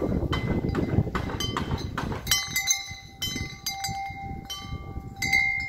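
Homemade tubular wind chime swinging, its hanging tubes struck again and again by the wooden striker disc and ringing with several clear, lingering tones. Through the first two seconds there is a low rumble of wind on the microphone, and the strikes come thick and fast after that.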